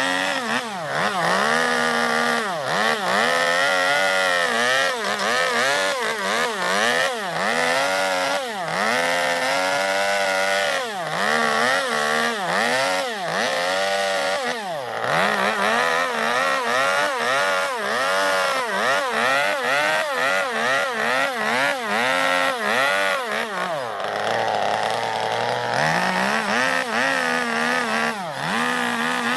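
Two-stroke chainsaw revving up and down over and over, about once a second, as it cuts into zelkova wood to hollow out a bowl. Near the end the engine drops to a lower steady speed for about two seconds, then revs up again.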